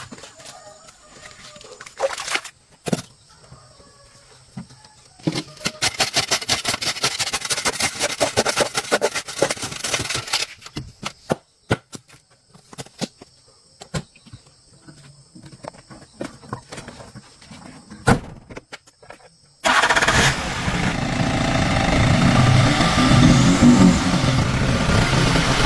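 Scattered clicks and knocks with a rapid rattling stretch, then a vehicle engine that starts suddenly about 20 seconds in and keeps running steadily.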